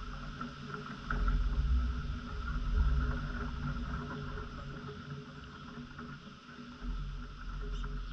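Wind buffeting the microphone in gusts, strongest from about a second to three and a half seconds in and again near the end, over a steady faint outdoor hum.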